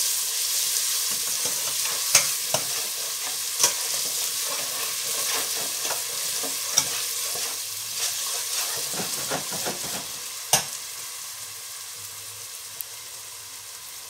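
Browned onions and garlic frying in oil in a stainless-steel pot, sizzling as they are stirred, with a few sharp clinks of the metal spoon against the pot. The sizzle dies down gradually over the second half.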